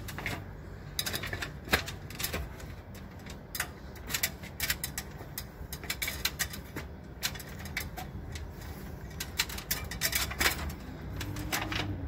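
Irregular sharp clicks and light metallic rattles, several a second: a man climbing down a steel water-tank stand, his shoes knocking on the frame and the keys at his belt jingling. A low steady hum runs underneath.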